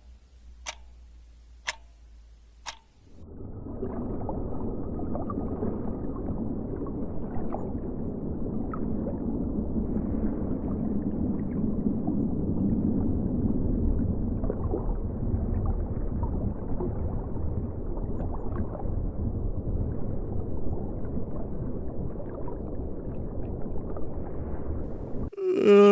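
Four sharp ticks about a second apart, then a steady low noise for about twenty seconds. Near the end it gives way to a man's cough.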